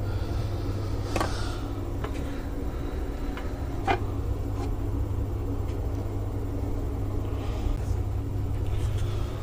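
Steady low background hum with a few light clicks and taps, as of parts being handled.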